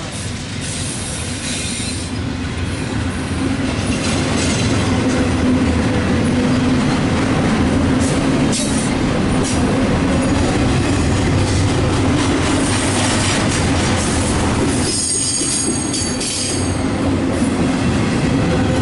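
CSX double-stack intermodal well cars rolling past close by, a steady loud rumble and clatter of steel wheels on rail that grows louder over the first few seconds. A brief high-pitched wheel squeal rings out about three-quarters of the way through.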